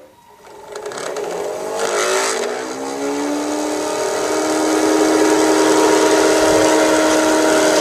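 Motor whine of a 16mm-scale garden-railway rotary snow plough and its locomotive, rising in pitch over the first few seconds and then running steady.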